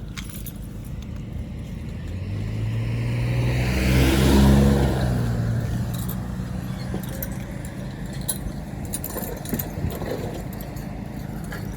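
A motor vehicle driving past, its engine and road noise building up, loudest about four to five seconds in, then fading away.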